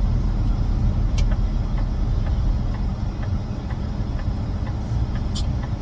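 Semi truck's engine and road noise heard inside the cab while driving: a steady low rumble, with two short sharp clicks, one about a second in and one near the end.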